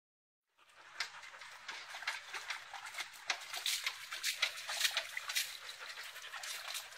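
Water splashing and pattering on a wet concrete floor, a steady hiss full of small irregular splashes, as dogs move about in it. It starts about half a second in.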